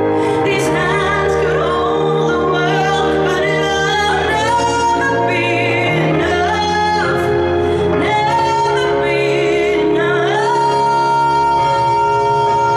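A woman singing a ballad into a handheld microphone over a sustained instrumental backing, holding a long high note near the end.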